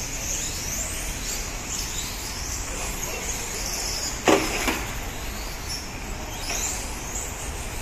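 Electric 1/12-scale RC pan cars running on a carpet track, their motors whining up and down in short rising and falling sweeps over a steady hiss. A sharp knock about four seconds in, followed by a softer one, is the loudest sound.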